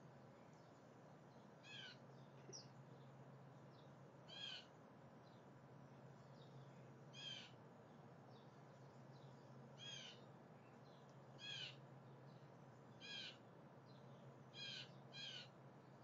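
Blue jay calling, faint: eight short calls spaced a second or two apart, two of them close together near the end, over a steady low hum.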